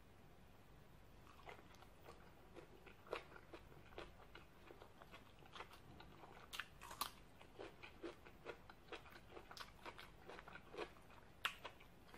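A person chewing a mouthful of green papaya salad close to the microphone: irregular wet crunches and mouth clicks begin about a second in. They are faint overall, with sharper crunches now and then.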